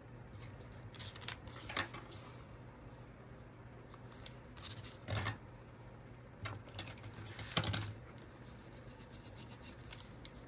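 Paper being handled and rubbed by hand while a pocket is pressed down: a few short scratchy rustles, the loudest cluster about two thirds of the way through.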